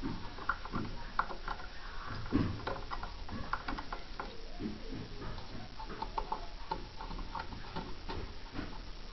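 Screwdriver working the needle-plate screw of a treadle sewing machine and the metal plate being handled: small, irregular metallic clicks and scrapes.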